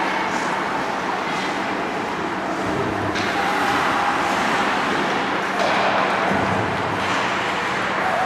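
Steady noisy din of an ice hockey rink, with a constant low hum underneath.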